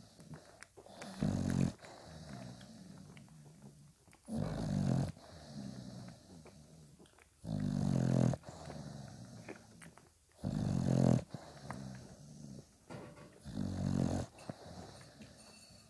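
Adult English Bulldog snoring as she breathes, five long, low, rasping breaths about three seconds apart.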